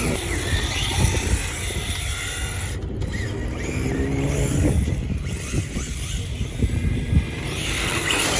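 Car engines running, a steady low rumble with a few engine notes rising and falling.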